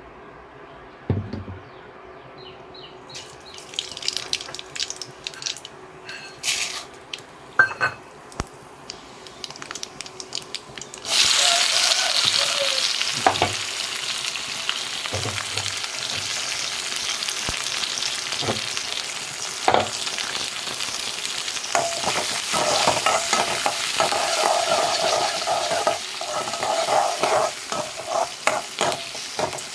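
Hot oil in a metal kadai with scattered crackles, then a sudden loud sizzle about eleven seconds in as chopped onions and green chillies go into the oil. Steady frying follows, with a steel spoon scraping and clicking against the pan as the onions are stirred.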